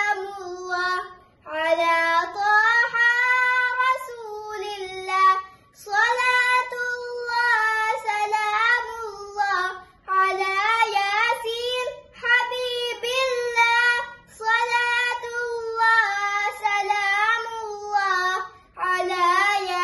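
A girl singing a Dhivehi madhaha (Maldivian devotional praise song) unaccompanied, in melodic phrases a few seconds long with short breaths between them.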